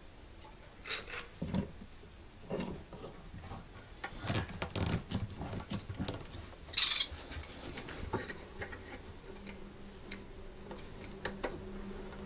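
Metal tools being handled at a guitar workbench: scattered light clicks, knocks and rubbing as a brass fret-press caul and a screw clamp are positioned over the fretboard for pressing in new frets, with one short, loud scrape about seven seconds in.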